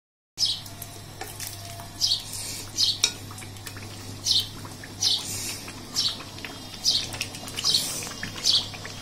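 A bird chirping over and over, one short high call about once a second, over a low steady hum. Faint metallic clinks come from an aluminium pot being lifted off a steel karai.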